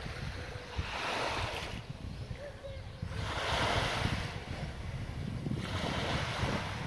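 Small waves breaking and washing up a sandy beach, three washes that swell and fade about every two to three seconds, over a steady rumble of wind on the microphone.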